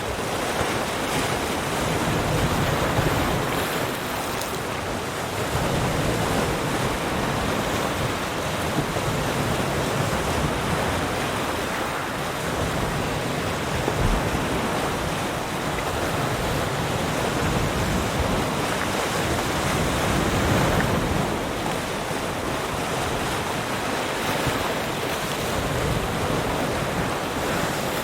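Sea waves breaking and washing on a shore, a steady rushing surf that swells and eases every few seconds.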